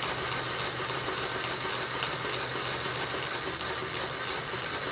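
1980 Estrela battery-powered mini toy sewing machine running steadily with its foot pedal held down, a fast, even mechanical rhythm.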